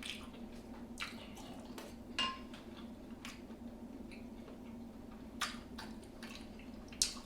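Eating from a seafood boil: five or so sharp clicks, with one brief ringing clink about two seconds in, as shells or utensils knock against a plate, with soft wet sounds between. A steady low hum runs underneath.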